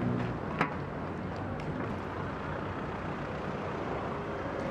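Street traffic: a steady hum of road vehicles, with one sharp click about half a second in.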